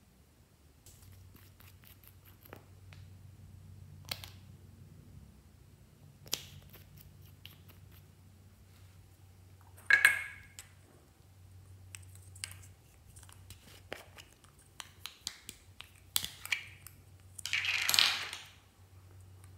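Small clicks and taps of small plastic containers and a glass nail polish bottle being handled and opened over a glass dish. A sharp, ringing clink comes about ten seconds in, and a longer scraping rustle comes near the end as an orange plastic container is pulled open. A low steady hum runs underneath.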